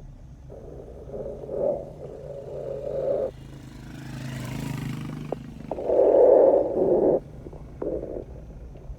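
Vehicle driving on a rough, potholed dirt road: the engine runs with a rise in pitch around the middle, under uneven rumbling from the bumps and wind on the microphone, loudest about six seconds in.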